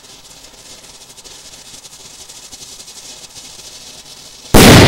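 Homemade strobe firecracker burning with a steady hissing crackle, then about four and a half seconds in a sudden loud bang as the charge goes off, echoing as it dies away.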